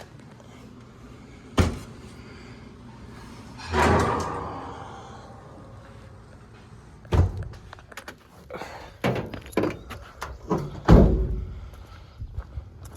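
A scattered series of knocks and thuds: a sharp knock, a longer clatter about four seconds in, then a run of knocks, the loudest near the end.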